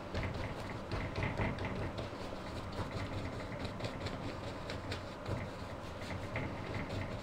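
Bristle brush scrubbing dark oil paint onto stretched canvas: a run of short, irregular scratchy strokes over a steady low hum.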